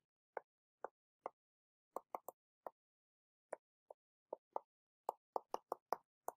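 A stylus tapping against a tablet screen as words are handwritten: about seventeen short clicks at an irregular pace, coming faster near the end.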